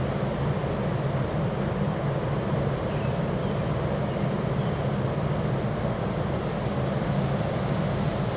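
Strong wind blowing: a steady low rumble with a rushing hiss above it.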